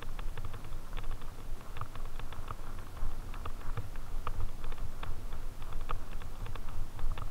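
Fatbike tyres rolling over a trail of dry fallen leaves: irregular crackling and clicking over a low rumble.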